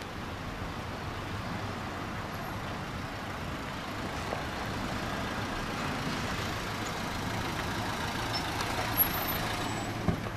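Fiat Doblò van driving slowly up the street and pulling up, its engine running steadily over tyre and street noise, with a couple of sharp clicks near the end.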